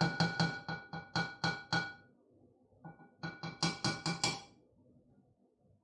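A mixing utensil knocking rapidly against a ceramic mixing bowl full of soda bread dough, about four or five strikes a second, so that the bowl rings. It stops after about two seconds, and a second run follows about a second later.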